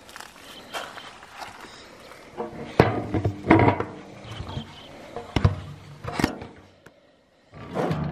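Knocks and clunks on an old tractor's rusty sheet-metal body while someone climbs onto it, with rubbing handling noise between them. About four sharp knocks are spread through the middle, and a louder, denser burst of noise comes near the end.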